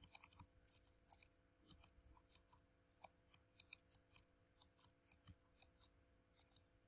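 Faint, irregular clicking of a computer mouse, a few clicks a second, as brush strokes are painted on screen, over a faint steady hum.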